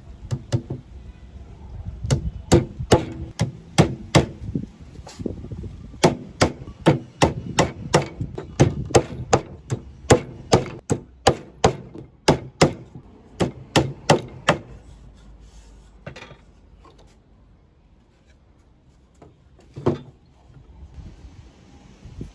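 Hammer striking wood in a steady run of sharp blows, about two to three a second, then stopping, with a few light taps and one last hard blow near the end.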